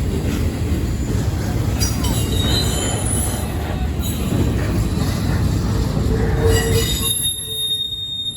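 Intermodal freight train rolling past with a heavy low rumble and wheels screeching and squealing against the rails. High squeals come and go from about two seconds in. Near the end the rumble eases while a thin high squeal carries on.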